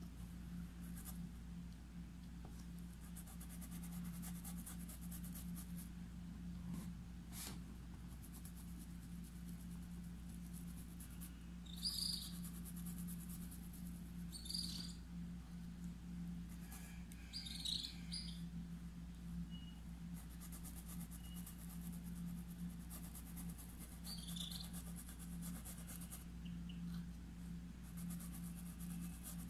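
Faint scratching of a paintbrush working acrylic paint into fabric stretched taut in an embroidery hoop, over a steady low hum. A few short high chirps come through, about a third of the way in, around the middle and again near the end.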